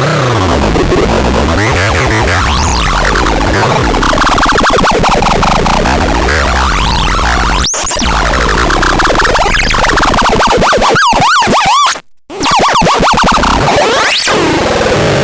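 Loud, chaotic electronic synthesizer noise with warbling pitch sweeps gliding up and down over a steady low drone. There is a sharp click about halfway through, and the sound briefly cuts out a few seconds before the end.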